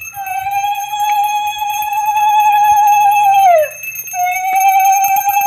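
Conch shell (shankha) blown for a Hindu puja in two long notes. Each note is held about three and a half seconds with a slight waver and slides down in pitch at its end, with a short break between them.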